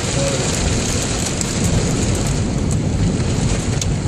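Heavy rain hammering on a car's roof and windscreen, heard from inside the cabin: a loud steady rush dotted with sharp drop ticks.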